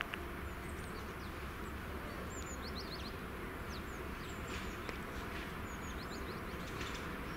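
Small birds chirping irregularly, short high calls that slide downward, over a steady low background rumble.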